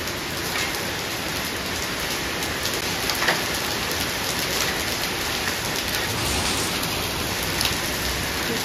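Hail and heavy rain pelting stone paving and a concrete wall ledge: a steady hiss of rain with scattered sharper ticks of hailstones striking, one a little louder about three seconds in.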